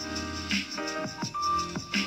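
Background music: a melody of short pitched notes over a held bass note, with a regular beat.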